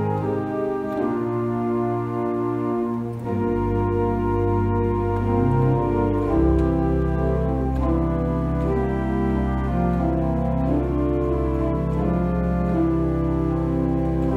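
Church organ playing music in held chords. Deep pedal bass notes come in about three and a half seconds in and grow fuller about six and a half seconds in.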